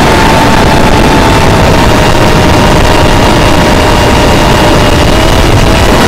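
FPV quadcopter's motors and propellers running in flight, heard through the onboard camera's microphone as a loud, steady rushing noise with a whine that holds a nearly constant pitch.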